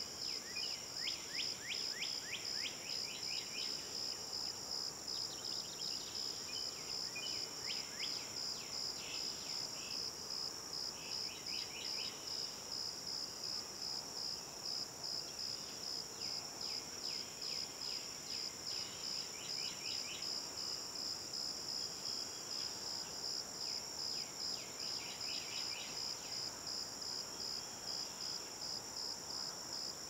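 Swamp ambience: a steady, fast-pulsing high insect trill, with a bird singing phrases of quick downward-slurred notes every few seconds.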